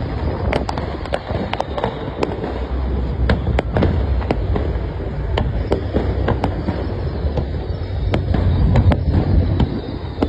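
Fireworks display: a dense, irregular string of sharp cracks and bangs over a continuous low rumble, getting louder near the end.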